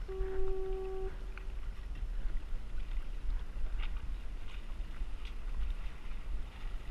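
Wind rumbling on the microphone, with a few faint clicks scattered through. Right at the start a steady pitched tone sounds for about a second, then fades.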